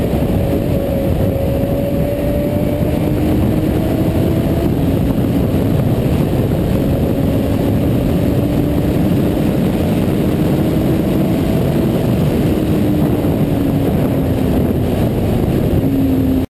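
Sport motorcycle engine running hard at fairly steady revs, its note drifting gently up and down through the corners, under a loud rush of wind on the onboard microphone.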